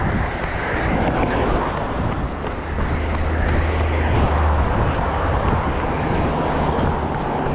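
Road traffic: a motor vehicle passing close by, its low engine drone strongest about two to four seconds in, with wind buffeting the microphone.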